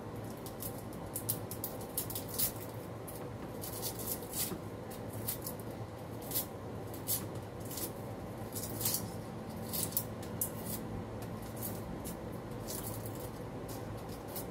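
Kitchen knife peeling and cutting small cloves held in the hand: irregular small crisp scrapes and snips, over a steady low hum.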